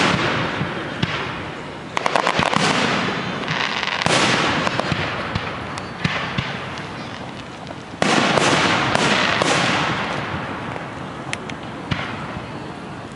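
Fireworks display: aerial shells bursting with loud booms that echo away, several in a row, some followed by rapid crackling, with a few sharp single cracks near the end.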